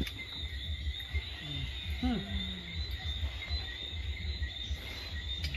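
Crickets trilling steadily in a high band, over a low rumbling noise, with a brief murmured voice about two seconds in.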